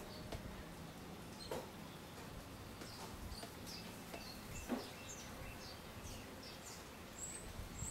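Eurasian tree sparrows chirping: many short, high chirps scattered throughout, with a couple of soft taps.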